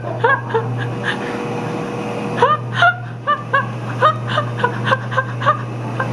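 Someone giggling in short, high-pitched bursts over the steady low hum of a jetted whirlpool tub's pump.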